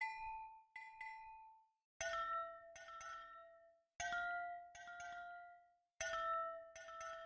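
Soft intro music of bell-like mallet percussion: a three-note figure of struck, ringing notes that repeats every two seconds, each note dying away slowly.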